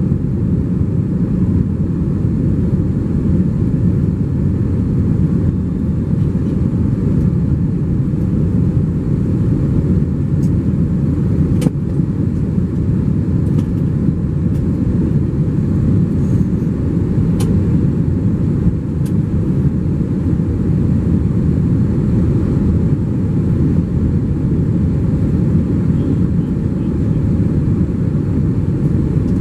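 Cabin noise inside an Airbus A321 in flight: a loud, steady, deep rumble of the jet engines and the air rushing past the fuselage, with a couple of faint clicks partway through.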